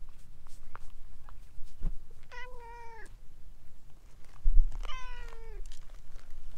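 Orange tabby cat meowing twice, two calls of just under a second each about two seconds apart, each dropping slightly in pitch at the end. A short low thump comes just before the second meow.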